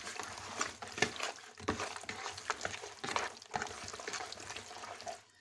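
Hands squishing and turning pieces of raw cleaned fish in a plastic bowl while rubbing salt into them: wet squelches with irregular small slaps and clicks.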